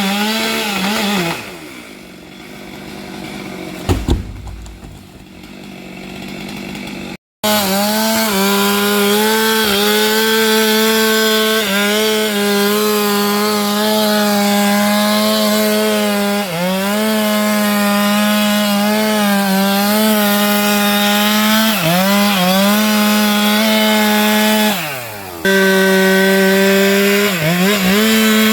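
STIHL MS 462 single-cylinder two-stroke chainsaw running at high revs while cutting sengon branches, its pitch sagging briefly each time the chain bogs in the wood. About a second and a half in it drops back to idle, with a sharp knock about four seconds in, then it is throttled up again and runs loud, with a short drop and rev-up near the end.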